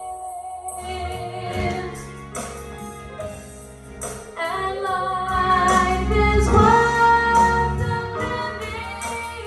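Live gospel worship song: female voices singing sustained lines over a band with a steady bass. The music swells louder about halfway through, then eases back.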